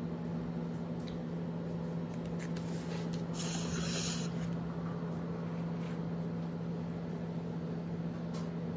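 A steady low electrical hum, with a short hiss about three and a half seconds in.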